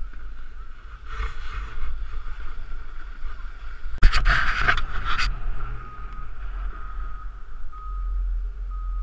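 Muffled wind and movement rumble on an action camera's microphone, with a louder rushing burst about four seconds in.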